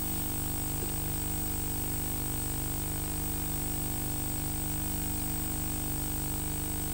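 Steady electrical hum and hiss with a thin high whine, unchanging throughout; no other sound stands out.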